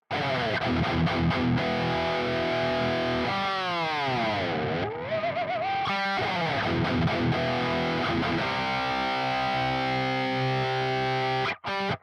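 RA 600 electric guitar played with heavy distortion, running through riffs. About a third of the way in a note slides far down and back up, followed by a wavering, vibrato held note; later chords ring out and are cut off abruptly near the end.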